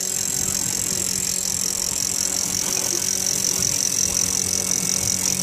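Electric deep-drop reel (a Shimano reel driven by an Electramate motor) winding in a hooked fish under load, giving a steady high whine over a steady low hum.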